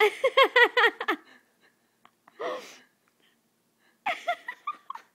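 A person laughing hard in two fits of quick 'ha-ha-ha' pulses, with a wheezing gasp for breath between them.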